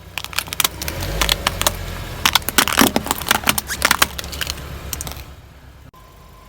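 A car tyre rolling over and crushing crunchy objects: a dense run of cracks and crunches over the car's low engine rumble, cut off abruptly near the end.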